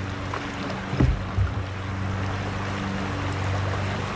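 Moving river water rushing steadily around a canoe, with a steady low hum underneath and a couple of short low knocks about a second in.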